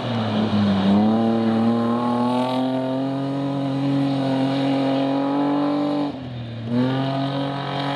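BMW 3 Series (E36) rally car engine held at high revs, its note climbing slowly through a long pull. The revs drop briefly about six seconds in, then rise again.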